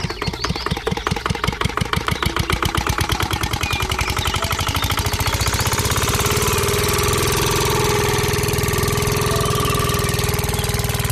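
Miniature model diesel engine starting up: a knocking chug that speeds up over the first few seconds and then settles into steady running, with a whine joining about halfway in.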